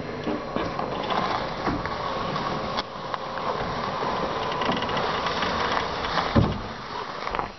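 A ratchet mechanism clicking steadily on the cable as a grooming compaction drag is let down off the side of a trailer, with a heavy thump about six seconds in.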